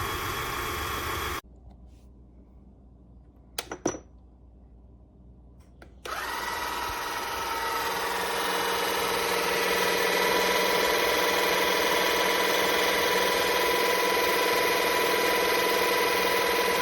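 A steady running noise cuts off suddenly about a second in, and a couple of clicks follow. Then, about six seconds in, the small electric motor of an electric car jack kit starts and runs steadily with a whine, growing a little louder over the next few seconds before it holds even.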